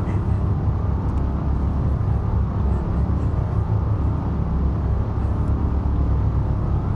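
A steady low rumble, loud and even, with no clear pitch.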